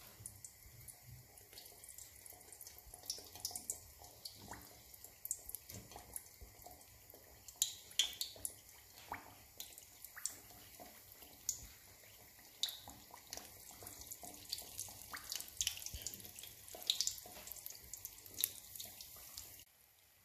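Panzerotti deep-frying in hot peanut oil in an aluminium pan: a steady sizzle full of sharp crackles and pops, busier after a few seconds, cutting off suddenly near the end.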